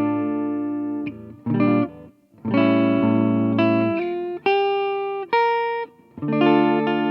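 Guitar playing sustained chords in an instrumental passage, each chord struck and left to ring, with short dips in level about two and six seconds in.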